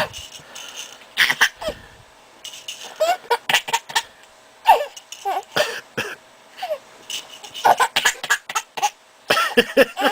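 A baby laughing in a string of short, breathy giggles and squeals, several bursts a second at times with brief pauses between.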